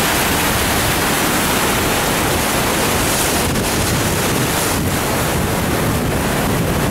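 Missouri River water rushing steadily through the Gavins Point Dam spillway, a flood release of about 150,000 cubic feet per second.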